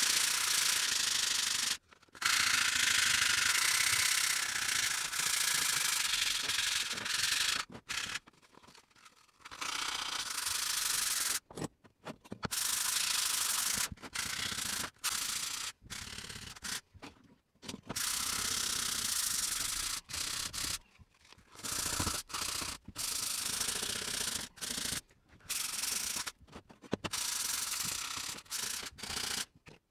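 Sandpaper on a sanding block rubbed back and forth over the steel blade of a Silky pruning saw, wet with WD-40: a rough, hissing scrape in long runs of strokes, broken by several short pauses.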